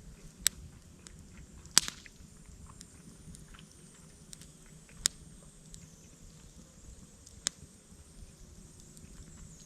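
Wood campfire crackling, with four sharp loud pops spread through and fainter small crackles between.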